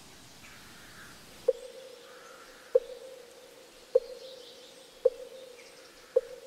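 Wooden temple block (moktak) knocked at a slow, even pace, about once every 1.2 seconds, each knock ringing on at one pitch. It starts about a second and a half in, with five knocks in all. Birds chirp faintly behind it.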